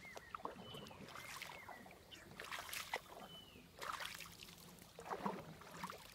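Wooden paddle strokes dipping into and pulling through calm lake water, a soft swish and splash about every second and a half.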